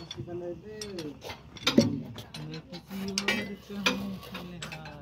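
Steel spanners clinking and knocking against the bolts and steel plates of a railway girder as the bolts are tightened: an irregular run of sharp metallic clicks, the loudest a little under two seconds in.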